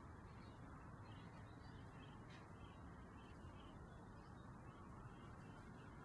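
Near silence: faint steady outdoor background hiss, with faint short high chirps of distant birds scattered through it.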